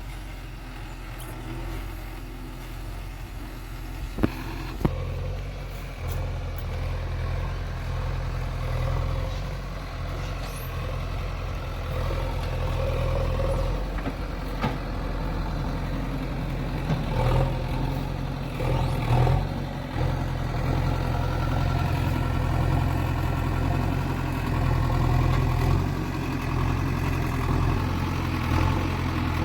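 Heavy diesel engine running steadily, with two sharp knocks about half a second apart a little after four seconds in.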